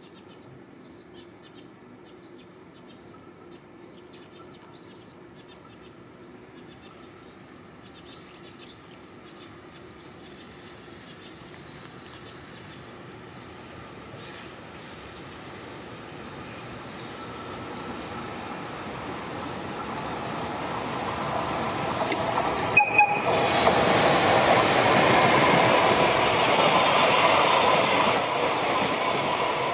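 JR Freight EF210 electric locomotive hauling a container train, approaching and passing: the noise of its wheels on the rails grows steadily louder. Two short, sharp sounds come about three-quarters of the way through.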